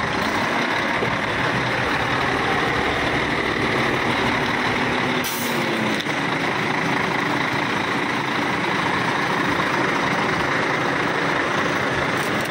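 Diesel engine of a Volvo FH 460 tractor unit running steadily close by, with a brief hiss about five seconds in.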